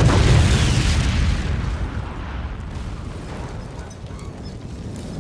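Film sound effect of an explosion: a heavy boom and low rumble already loud at the start, dying away over about two seconds into a lower, steady rumble.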